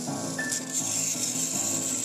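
Battery-powered toy train motors, Plarail-style, running on plastic track: a high, rasping whir with a thin steady whine that cuts off abruptly. Light background music plays underneath.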